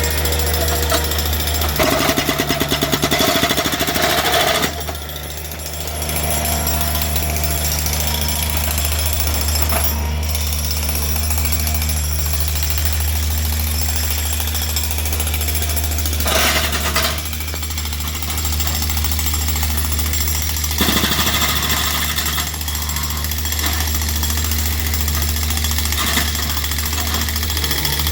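Jackhammer breaking up concrete, hammering in stretches, over a steady low engine hum.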